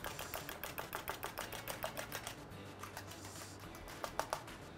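A spoon beating eggs in a small stainless steel bowl: rapid clicking of the spoon against the metal, thinning out and getting quieter after about two and a half seconds.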